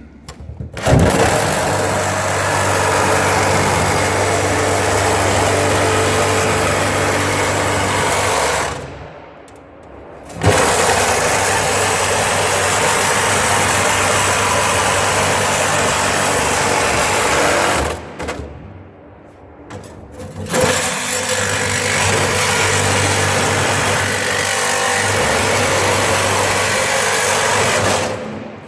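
Reciprocating saw (Sawzall) cutting into the steel of an old safe, running in three long stretches of about eight seconds each, with two brief pauses.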